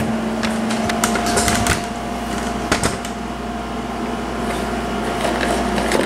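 Handling noise: light clicks, knocks and rustling as plastic cordless handsets and a cardboard box are handled. Under it runs a steady hum with a faint whine.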